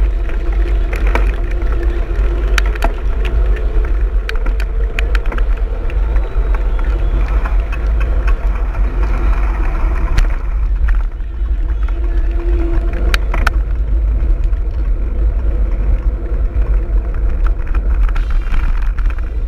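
Steady heavy rumble of wind and road vibration on the microphone of an action camera carried by a rider on a fast mountain-bike ride, with knobby tyres on asphalt and scattered sharp clicks and rattles from the bicycle.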